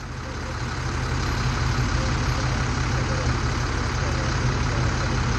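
Diesel-electric locomotive engine running with a steady low drone as the unit rolls slowly toward the listener; the sound rises in level over the first second.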